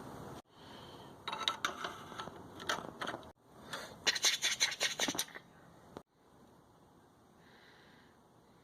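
Short bursts of scratching and scraping on steel, broken by several abrupt cuts, followed from about six seconds in by a faint steady hum.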